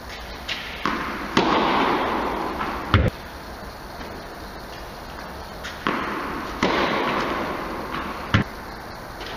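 Tennis racket striking the ball on two kick serves, each sharp crack followed by a long echo that dies away over a second or so in the large indoor hall, with other short sharp knocks of the ball in between.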